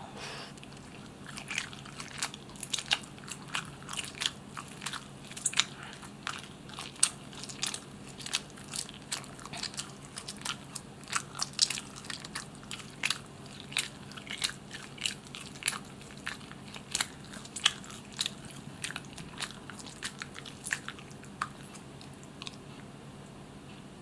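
Close-miked chewing and biting of barbecued chicken: a dense run of sharp, wet clicks several times a second that thins out near the end.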